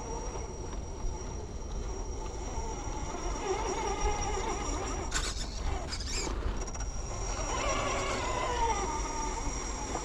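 RC rock crawler's electric motor and gears whining, the pitch wavering up and down as the throttle changes while it crawls, with two short clatters near the middle.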